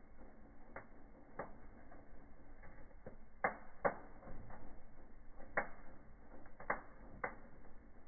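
Fire crackling in a fireplace: burning fir branches give off irregular sharp pops, about eight of them, the loudest pair about three and a half to four seconds in, over a faint hiss of flame. The audio is slowed down with the slow-motion picture.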